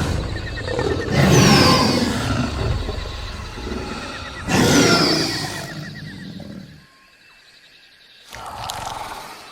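A large animal roaring, three long roars and a shorter one near the end, over a steady chirring of jungle insects.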